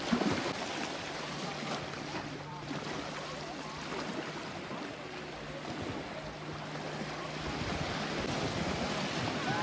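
Small sea waves washing at the shoreline, with wind buffeting the microphone. A faint steady low hum runs under it for much of the time and stops shortly before the end.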